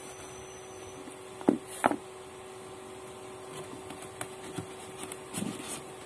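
Handling noise from a small humidifier circuit board and workbench tools: two sharp knocks about a second and a half in, then scattered small clicks and soft bumps, over a steady faint hum.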